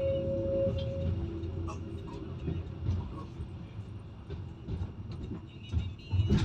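Vossloh/Stadler Citylink tram train running on the rails, heard from inside the car. A steady electric motor tone stops about a second in, leaving the running rumble, which gradually gets quieter.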